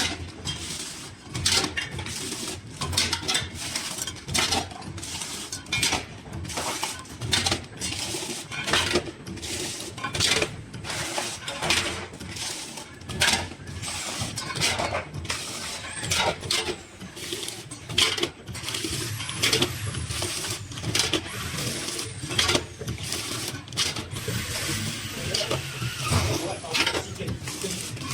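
Stick packaging machine with a chain bucket conveyor running: a low hum under a steady run of irregular clicks and clacks, roughly one or two a second.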